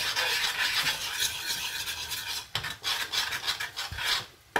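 Metal spoon scraping and stirring flour into melted butter in a small stainless-steel saucepan, a continuous rasping scrape of many quick strokes that drops away briefly near the end. The flour is being worked into the butter to make a roux.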